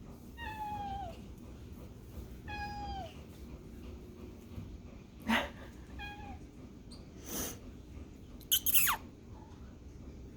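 A cat meowing: three short meows that each slide down in pitch, spread over several seconds. A few brief breathy noises come in between, the loudest near the end.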